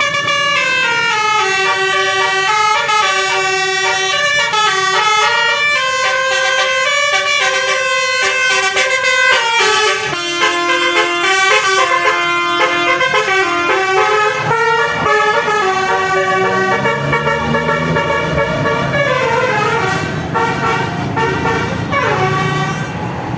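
Bus's basuri multi-tone 'telolet' musical horn playing a long tune of stepping notes, in repeated rising and falling runs. A lower tone glides upward about two-thirds of the way through.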